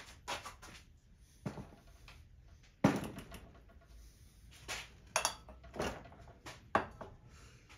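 A series of separate knocks and clunks of objects being handled and set down, as the removed boiler of a miniature steam locomotive is put aside. There are about seven, the sharpest about three seconds in.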